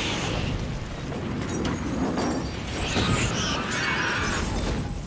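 Film sound effect of an oven packed with oxygen tanks exploding: a sustained blast with crashing, shattering debris.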